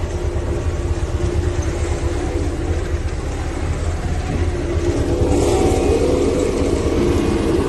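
Road roller's diesel engine running steadily with a low pulsing drone, a brief rise of hissy noise joining it about five seconds in.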